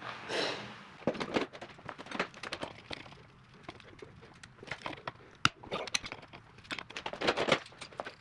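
Hand tools clicking, knocking and scraping on metal in scattered short strokes while working at a broken grease fitting that has too little left for the tool to grip.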